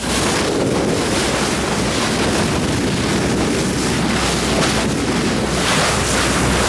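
Wind buffeting the microphone and water rushing along the hull of a boat under way, over a steady low rumble.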